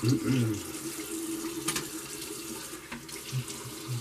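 Water running from a tap into a sink, with a couple of brief clicks.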